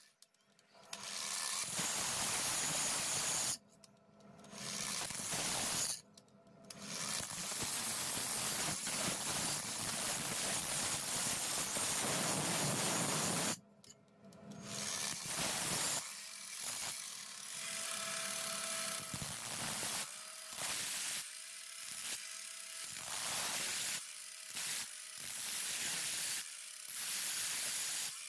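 Angle grinder with a thin cut-off disc cutting through a steel knife blade, a loud, even grinding rush. It stops for short breaks a few times, and in the second half it cuts in and out about once a second.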